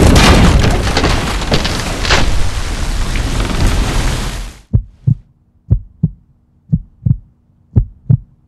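Loud rushing of water gushing into a sailboat's cabin, which cuts off abruptly after about four and a half seconds. Then a slow heartbeat follows: four double thumps about a second apart.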